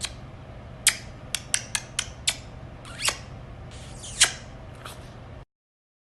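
A small animal gives about ten short, high chirps, each falling quickly in pitch, over a low steady hum; the loudest comes about four seconds in. The sound cuts off abruptly near the end.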